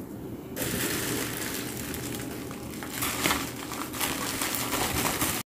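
Plastic bubble wrap crinkling and rustling as it is handled and unwrapped, with a few louder crackles along the way. It cuts off suddenly near the end.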